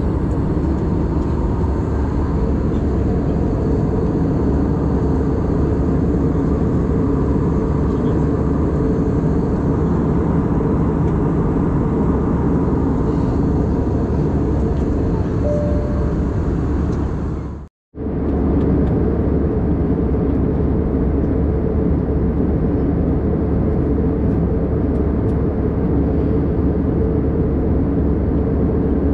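Steady cabin drone of an Airbus A320-216 in cruise, airflow and engine noise heard from a window seat over the wing. The sound cuts out for a moment about two-thirds of the way through.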